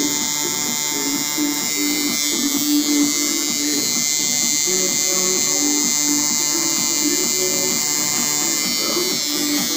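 Tattoo machine buzzing steadily as its needle lines into a sheet of EVA foam practice skin, over background music.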